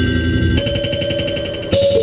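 Music: held, steady synthesizer-like notes with a sharp hit and a new chord about three-quarters of the way through.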